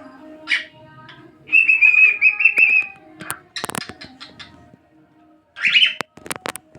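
Pet cockatiel whistling: a couple of short chirps, then a held whistle of about a second and a half with a slight warble, and another short call near the end. Several sharp clicks fall in between.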